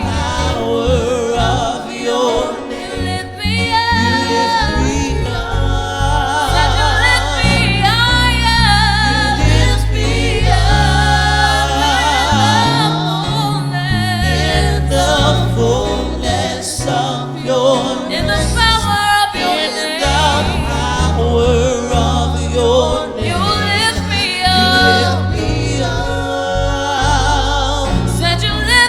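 Gospel song: voices singing with vibrato over a steady bass line and instrumental backing, with no clear words.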